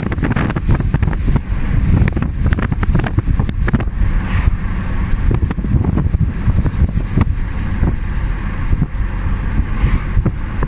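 Wind buffeting the microphone in a moving car: a loud low rumble broken by rapid, irregular gusting thumps, over the car's road noise.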